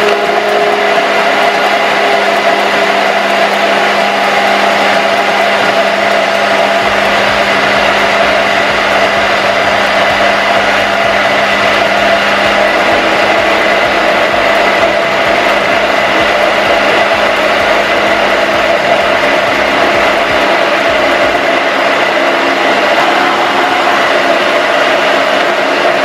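Immersion (stick) blender running steadily at medium-low speed with its head held at the bottom of a tall beaker, emulsifying soy milk and oil into vegan mayonnaise. A continuous motor whine with a churning blend, its tone shifting slightly about halfway through as the mixture thickens.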